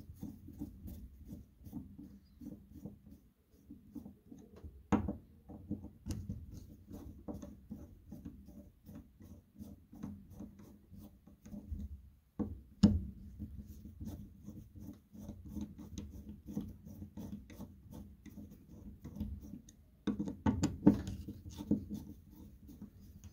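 Screwdriver turning the cover screws of a Polaris Indy 500 snowmobile fuel pump held in the hand: small clicks of metal on metal and rubbing of the pump in the hand, with a few sharper clicks, one about five seconds in, one near the middle and a cluster near the end.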